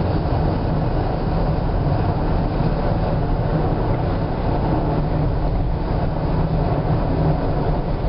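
Steady road noise of a car at highway speed heard from inside the cabin: a constant low rumble of tyres and engine with a fainter hiss of wind and road.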